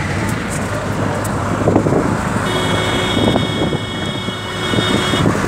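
Traffic heard from inside a moving vehicle: a steady engine and road rumble. A high, steady tone is held for nearly three seconds from about halfway through.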